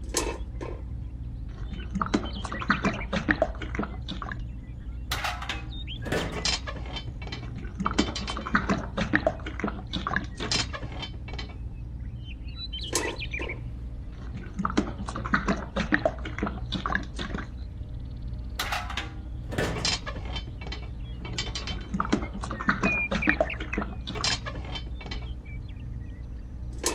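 Rapid, irregular clicking and clattering of a small mechanism over a steady low hum.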